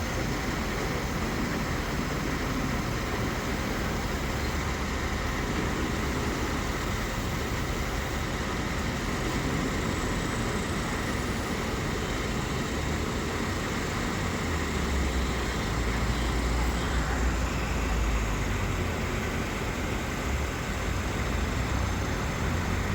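Asphalt cold milling machine running steadily: a heavy engine rumble with a low drone that grows stronger about fifteen seconds in.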